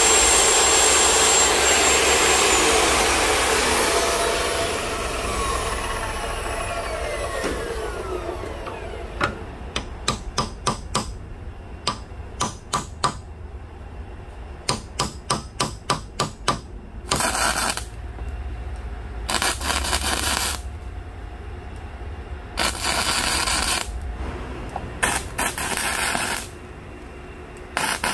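Abrasive chop saw cutting metal, then switched off with its blade whining down in falling tones. Then quick runs of hammer blows on a metal part, about four a second. Then arc welding in five separate bursts of crackle, each about a second or so long.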